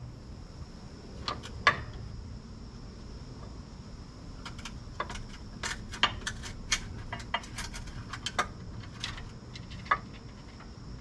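Scattered sharp metallic clicks and clinks of hand tools and bolts, about twenty over several seconds, the loudest about two seconds in, over a steady low hum.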